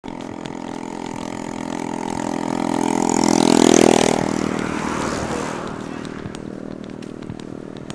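A motor vehicle passing by: its engine hum grows louder to a peak about four seconds in, then fades away.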